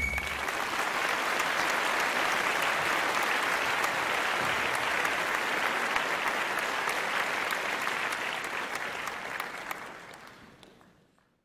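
Crowd applause, a dense steady clapping that fades out near the end.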